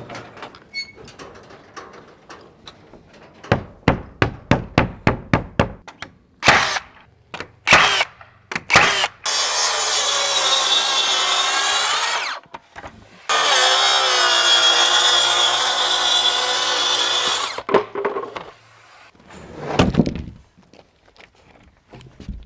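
Makita track saw running on a guide track and cutting an LP WeatherLogic sheathing panel in two passes of about three and four seconds, its motor tone wavering under load. Before the cuts comes a quick run of about ten sharp knocks, roughly four a second.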